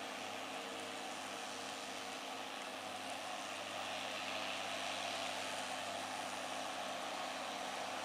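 Case IH CVX175 tractor's six-cylinder diesel engine pulling steadily under load behind a six-furrow plough, a faint even hum under a steady hiss.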